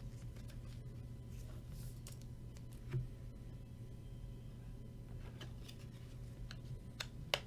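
Faint scattered clicks and taps of trading cards being handled, with a sharper click about three seconds in and another near the end, over a steady low hum.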